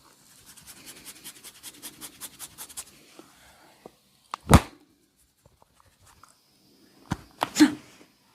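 Hands striking quickly and rhythmically during a massage, about six strokes a second for nearly three seconds, then a loud sharp hit about halfway through and two more sharp hits near the end.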